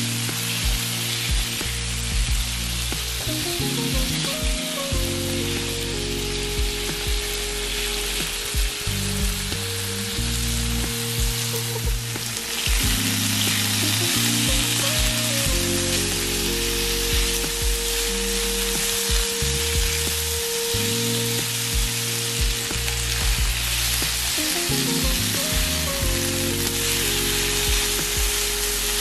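Veggie chicken strips and green peppers sizzling steadily in oil in a nonstick frying pan, turned now and then with a silicone spatula. Under the sizzle runs background music of low held notes.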